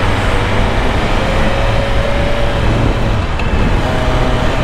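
Riding sound of a 2023 BMW S1000RR: its inline-four engine pulling gently as the bike picks up speed in traffic, under steady wind rush and tyre noise on a wet road.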